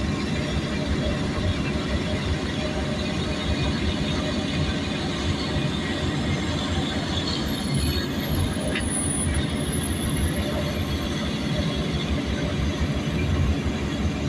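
Diesel engines of heavy earthmoving machines, bulldozers and excavators, running steadily under working load, a dense low rumble.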